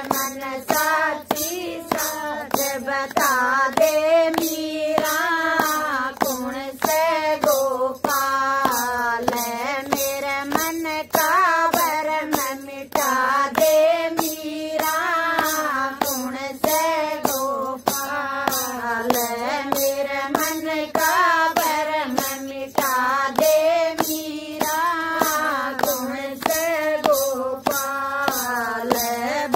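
Group of women singing a Hindi devotional bhajan without instruments, to steady hand clapping about twice a second.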